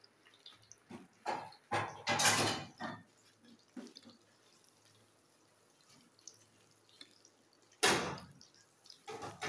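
Kebabs frying in hot oil in a brass karahi, the oil sizzling and spitting. There are a few sharp spurts about a second in, around two seconds in and near the end, with only a faint sizzle in between.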